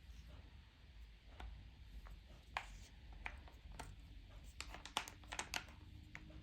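Faint scattered clicks and light metallic taps of steel impact sockets being handled, with a quick run of clicks about five seconds in.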